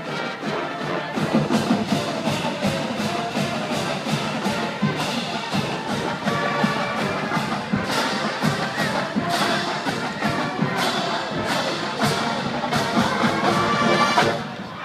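A college marching band plays brass and drums over a steady drum beat, building to a loud final chord that cuts off just before the end.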